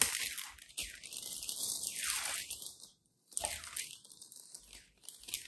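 Clear plastic packaging bag crinkling and rustling as a cable is taken out of it and handled, coming and going irregularly with a brief pause about three seconds in.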